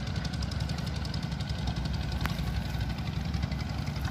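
An engine running steadily off-screen, with a low rumble and an even, fast pulsing beat.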